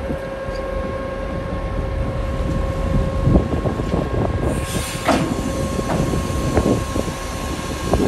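Ship's engine and deck machinery rumbling low with a steady hum as the ferry comes alongside the pier, with irregular knocks and clanks from about two and a half seconds in, the loudest near the middle.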